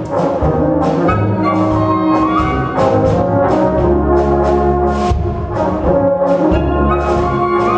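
German brass band (Blasmusik) playing a polka live: tubas and baritone horns under trumpets and clarinet, with drums keeping a steady beat.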